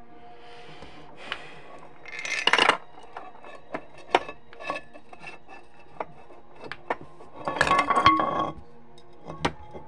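Marbles rolling and rattling through a chrome metal tube on a marble-run track, with two longer rolling rattles, about two seconds in and again around seven and a half seconds in, and scattered clicks and knocks between them.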